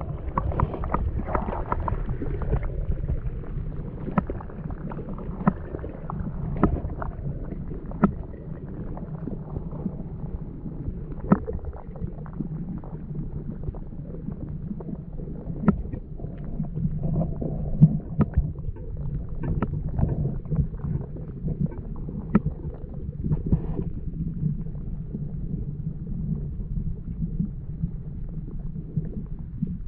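Underwater sound from a camera held below a lake's surface: a steady, muffled low rumble of water moving against the camera, with scattered sharp clicks every second or two.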